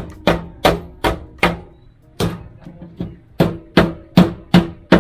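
Repeated hammer blows on metal, about two or three a second, each with a short ringing tone, with a brief pause about two seconds in.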